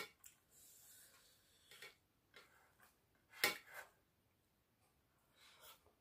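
Quiet eating sounds: fingers mixing and scooping rice on a plate, with soft chewing and mouth noises. A few short clicks, the sharpest about halfway through.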